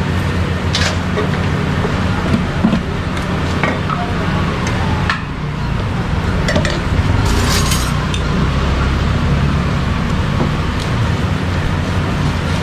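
A steady low rumble of background noise, with scattered short clicks and a brief crinkling rustle midway as plastic bags are filled and tied and utensils are handled.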